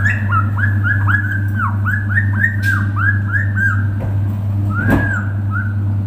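Pet parrot whistling a quick run of short rising-and-falling notes, about four a second, for nearly four seconds, then one longer whistle near the end. A steady low hum runs underneath.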